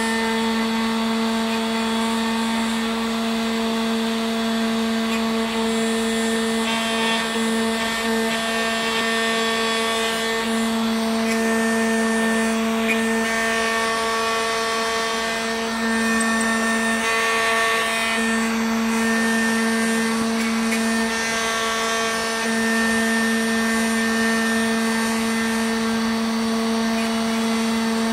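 Homemade CNC router carving a block of candle wax: the spindle motor runs with a steady whine while the engraving bit cuts, the tone dipping slightly now and then as the cut changes.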